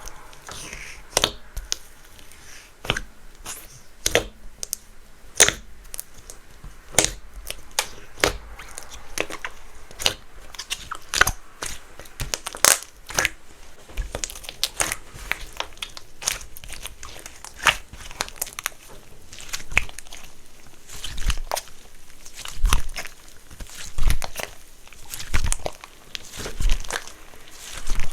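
Glue slime mixed with clay being pressed and stretched by hand, giving irregular sticky clicks and pops about once a second. From about two-thirds of the way in, the pops come with a deeper, softer thud.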